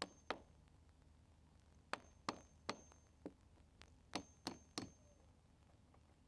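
Hammer blows on a chisel chipping away cut sections of a boat's toe rail: about ten sharp, irregular knocks, several with a brief metallic ring, pausing for a second or so after the first couple before continuing in a quicker run.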